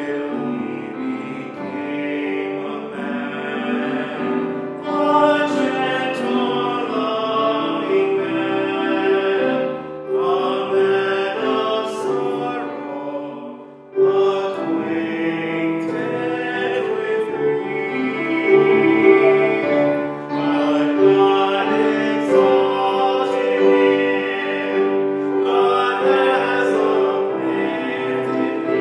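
A man singing with grand piano accompaniment. The singing stops briefly about fourteen seconds in, between phrases.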